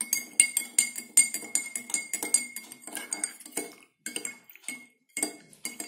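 Metal spoon stirring salt into water in a glass tumbler, clinking quickly and repeatedly against the glass, each tap ringing briefly. The stirring stops for about a second past the middle, then picks up again.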